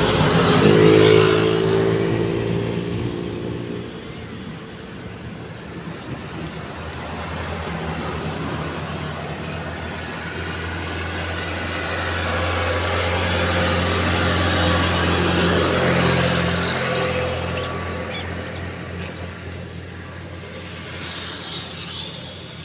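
Road traffic: motor vehicles driving past, the engine noise swelling and fading, loudest at the start and again about two-thirds of the way through.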